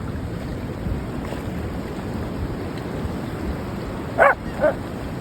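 A corgi barks twice in quick succession, the first bark louder, over a steady rumble of wind and surf.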